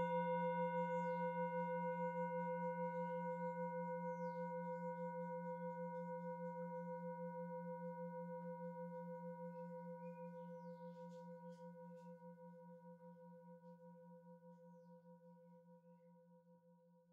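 Singing bowl struck once, ringing out with a low hum and several higher overtones, wavering gently as it slowly fades away to nothing near the end.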